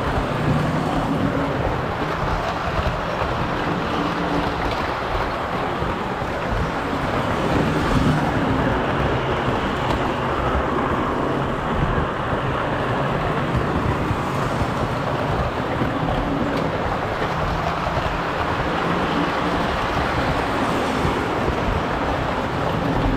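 Lionel model train running around its track: a steady rolling rumble of metal wheels on the rails with a low motor hum, heard close up from on board the passenger cars.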